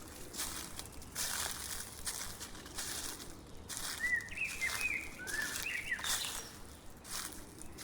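Footsteps crunching through dry fallen leaves at a steady walking pace. A small bird gives a quick run of short chirps about halfway through.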